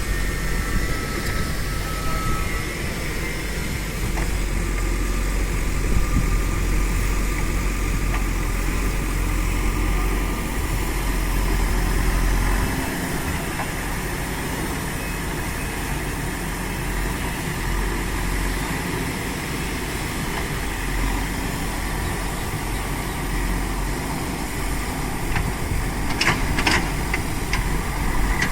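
Backhoe loader's diesel engine running with a low rumble that eases off about halfway through. A few short knocks come near the end.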